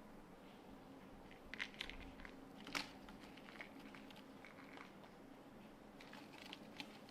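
Kittens playing, making faint scattered clicks, scrabbles and rustles, with the sharpest click just under three seconds in.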